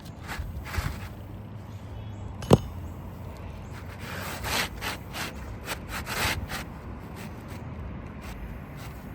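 Asphalt roof shingles being scraped and rubbed during a repair, with one sharp knock about two and a half seconds in and a run of scraping strokes between about four and six and a half seconds.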